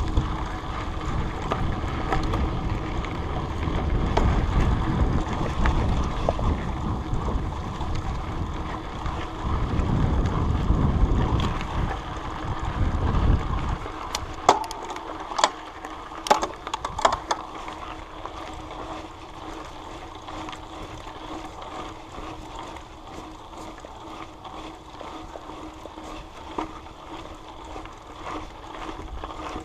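Mountain bike ride heard from a chest-mounted camera: wind buffeting the microphone with trail rumble and rattle, dropping away about halfway through, then quieter rolling with a few sharp clicks and knocks.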